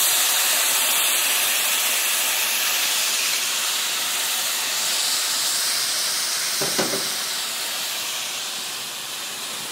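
White wine sizzling and hissing in a hot cast iron skillet of toasted orzo and garlic as it deglazes the pan, a steady hiss that slowly dies down.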